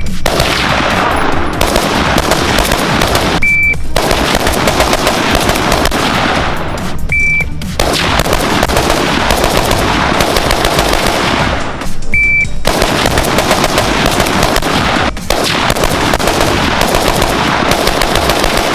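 Rapid gunfire from a firearm on a shooting range, in long runs of about three to five seconds split by short pauses. A short high beep sounds at several of the pauses, just before the shooting resumes.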